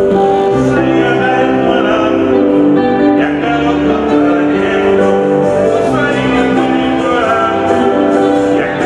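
Music with singing voices on long held notes, loud and steady.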